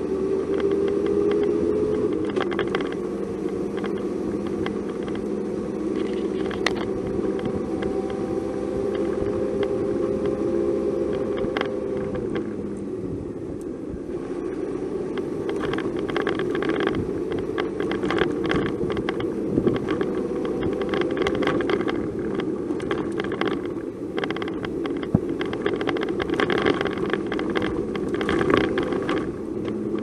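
Engine of a moving road vehicle heard from on board, its pitch shifting up and down with speed, over road noise and frequent small rattles and knocks from the bumpy road.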